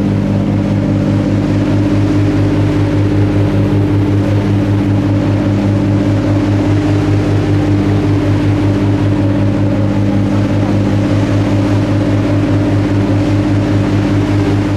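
Diesel engines of the Garinko icebreaker tour boat running steadily under way, a loud low drone with a regular throbbing beat, over a hiss of wind and water.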